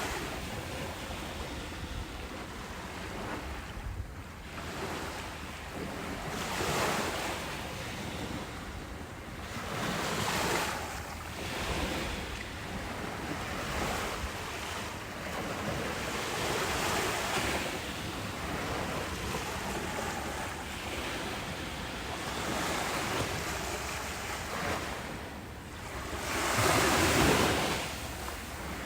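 Ocean waves breaking on a beach: a continuous wash of surf that swells every few seconds, with the biggest surge near the end.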